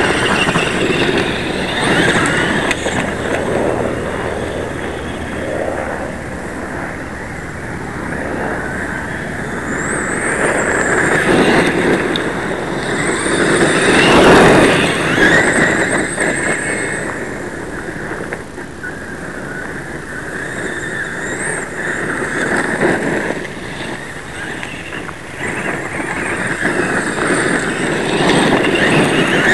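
Traxxas E-Maxx electric RC monster truck driving over loose gravel. The motor and gearbox whine rises and falls with the throttle over the crunch of its tyres on the stones, loudest about halfway through.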